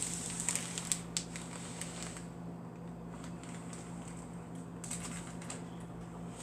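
Scattered light clicks and crackling rustles of hands handling things, in two bursts in the first couple of seconds and again around five seconds in, over a steady low electrical hum.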